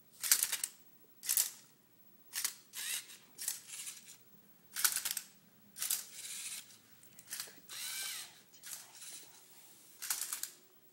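Lego Mindstorms NXT servo motors of a Tilted Twister Rubik's cube robot working in a series of short whirring bursts, roughly one a second, some with a whine that bends in pitch, mixed with plastic clicks. The bursts are the robot carrying out its solving moves, flipping the cube with its arm and turning it on the turntable.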